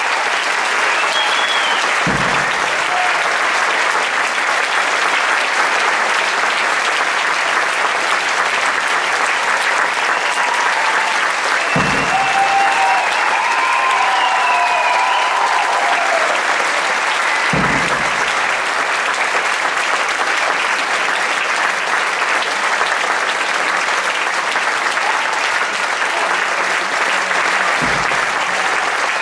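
Theatre audience applauding steadily throughout, with a few voices calling out partway through and four dull low thumps spread across it.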